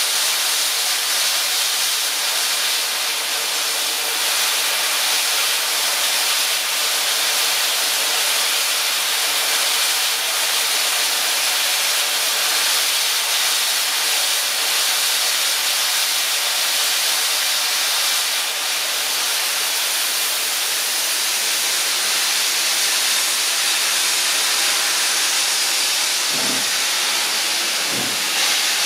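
Steam locomotive 3016 hissing loudly and steadily as steam blows from its open cylinder drain cocks. Near the end two low exhaust chuffs sound as it starts to move off.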